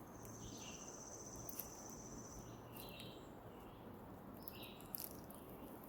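Faint woodland ambience: an insect gives a high, pulsing trill for about two and a half seconds, and a few short, faint chirps are heard here and there.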